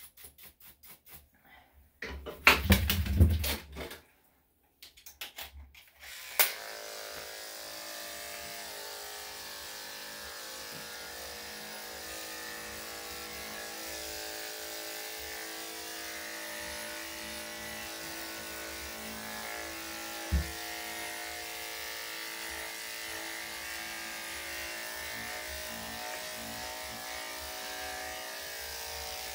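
Clatter and clicks of a blade being swapped on electric dog clippers, then at about six seconds the clippers switch on and run with a steady hum; a single sharp knock comes near twenty seconds.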